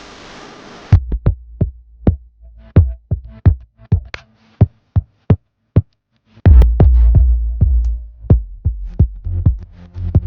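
Electronic music with drum-machine hits. A hiss cuts off about a second in, then sharp beats follow, a brief drop comes in the middle, and heavy bass returns for the second half.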